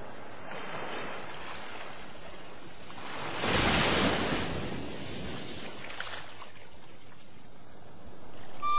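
Sea waves washing in, a steady rush with one louder swell that rises and falls about three and a half seconds in.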